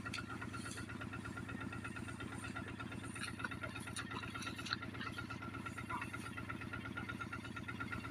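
An engine running steadily at a constant speed with an even, rapid throb.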